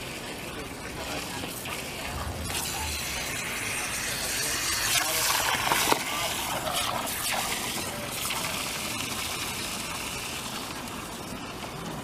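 Water spraying from a garden hose nozzle into a plastic kiddie pool, swelling to its loudest around the middle and easing off afterwards.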